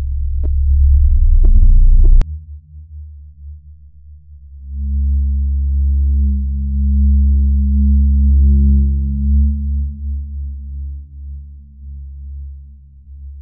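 Deep, low droning rumble, a horror-film sound effect, that swells and cuts off abruptly with a click about two seconds in. It swells again from about four and a half seconds and then slowly fades. It serves as an ominous cue that something paranormal is about to happen.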